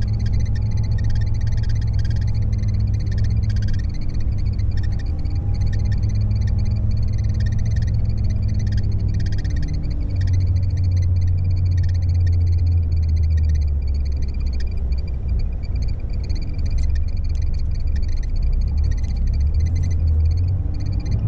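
Intercity coach's diesel engine running with a steady low hum that drops slightly in pitch about ten seconds in, under a high, pulsing night chorus of calling frogs.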